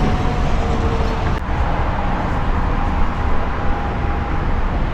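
Steady low outdoor rumble with a faint steady hum running through it.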